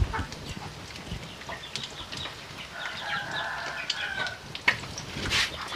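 Quail eggs frying in hot butter in a pan, crackling with scattered small pops, and a loud spit of spattering fat about five seconds in. A chicken clucks in the background for about a second and a half midway.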